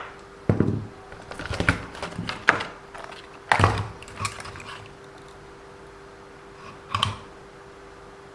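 Irregular clicks and knocks of small RC car parts being handled and set down, in short clusters over a faint steady hum.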